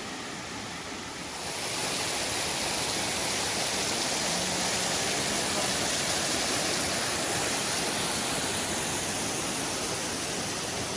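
Asahi Falls, a cascade whose water slides down over a rock face, rushing steadily. The rushing grows louder about a second and a half in, then holds.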